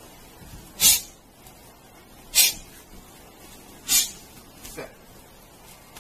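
Three short, sharp hissing sounds about a second and a half apart, with a fainter fourth one near the end.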